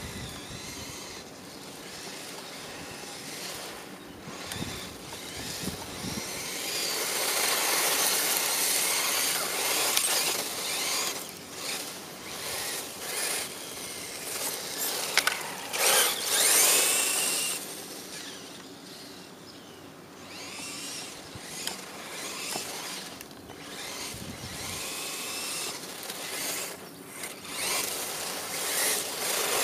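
Traxxas 1/16 Mini E-Revo electric RC truck driving on loose dirt: the motor and gears whine, rising and falling with the throttle, over the hiss of the tyres. It is loudest about halfway through, as the truck passes close by.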